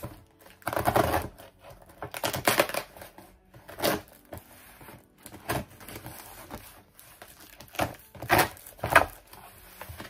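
A cardboard parcel being unpacked by hand: a string of irregular rustling, crinkling and tearing bursts of packaging as the contents are pulled out, the longest about a second in.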